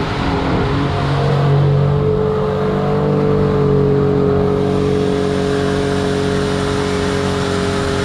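Mitsubishi Pajero's 3.0 V6 engine held at high, steady revs through its automatic gearbox as the 4x4 churns through deep mud with its wheels spinning. The engine note strengthens about a second in, then holds.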